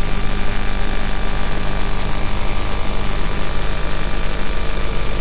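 Game-drive vehicle's engine idling steadily, with a fast, even throb.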